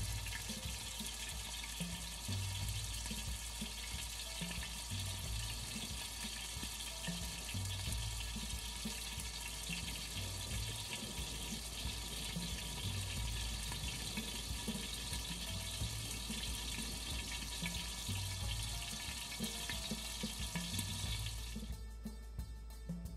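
Gram-flour-battered potato and onion pakoras deep-frying in hot oil: a dense, steady sizzle of bubbling oil, which cuts off sharply near the end. Background music with a steady low beat runs underneath.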